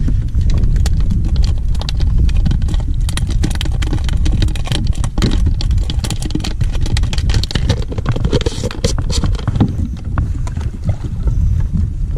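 Wind rumbling on the microphone aboard a fishing kayak at sea, with a dense, irregular patter of small knocks and splashes against the hull.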